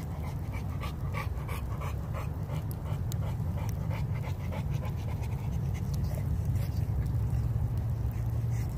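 A young Renascence Bulldogge panting close by in quick, rhythmic breaths, most plainly over the first few seconds. A steady low rumble runs underneath.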